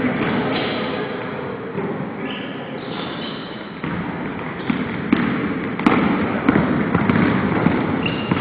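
Basketball bouncing on a hardwood gym floor during play, with scattered thuds and short high squeaks, heard in a large gym.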